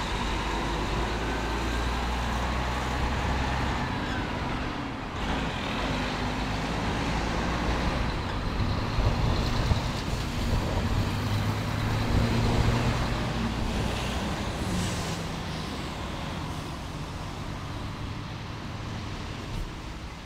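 A semi-trailer truck passes close by, loudest around the middle, over steady engine rumble and road noise as a locomotive-hauled Comeng electric train set moves along the track.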